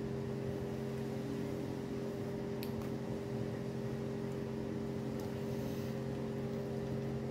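Steady low machine hum with a few fixed tones, unchanging throughout, with a couple of faint light ticks.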